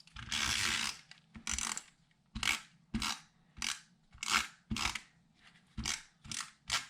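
Adhesive tape runner drawn across paper. One longer stroke comes first, then many short quick strokes, two or three a second.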